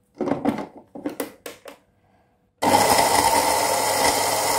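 A small plastic grinder jar clatters a few times as it is set and locked onto an electric spice grinder base. About two and a half seconds in, the grinder's motor starts suddenly with a loud steady whir, grinding whole spices down to powder.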